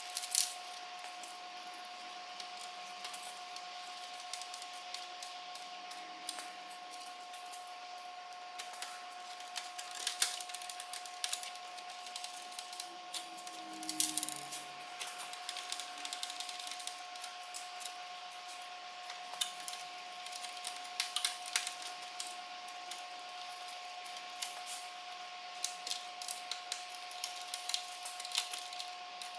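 Scattered light plastic clicks and rattles as gloved hands handle wiring and cable ties on the back of a plastic grille, over a steady two-tone hum.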